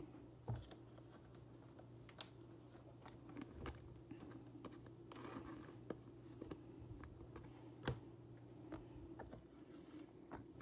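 Faint irregular crinkles and clicks of a foil trading-card pack wrapper being handled and worked open by hand, over a low steady hum.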